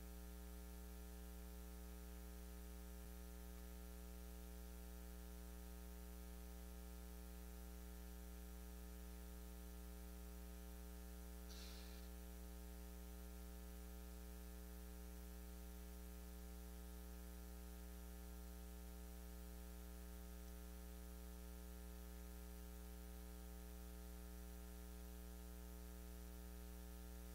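Steady electrical mains hum with a buzz of many even overtones, otherwise near silence; a brief faint noise about halfway through.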